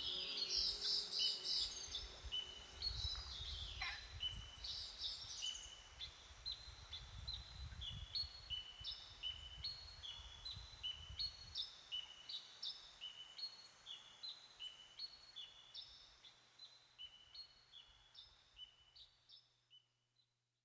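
Birdsong: a busy burst of high chirping in the first few seconds, then a short high call repeated about twice a second, all fading out to silence near the end.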